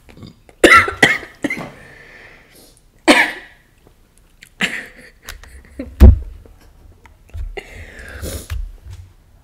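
A girl coughing repeatedly: a series of short, sudden coughs, about six or seven in all, spread through the few seconds.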